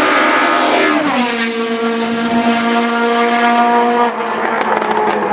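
BMW 2002 racecar's naturally aspirated four-cylinder engine running hard. Its pitch drops quickly about a second in, holds steady for about three seconds, then changes again near the end.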